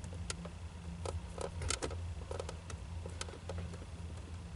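Small flathead screwdriver working at the plastic console trim around a Jeep Cherokee XJ's shifter, giving irregular small clicks and creaks over a steady low hum.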